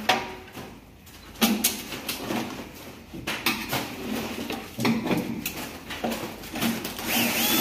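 Metal exhaust fan housing being handled and shifted by hand, with irregular knocks and scrapes and a rustle of plastic sheeting.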